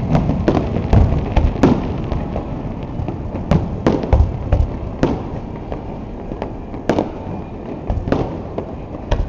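Fireworks display: aerial shells bursting one after another in a string of sharp bangs and deep booms at irregular intervals.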